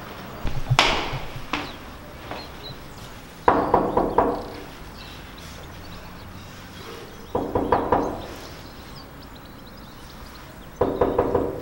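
Knuckles knocking on a wooden flat door: three rounds of quick knocks, four or five raps each, a few seconds apart. A short clatter comes about a second in, before the first round.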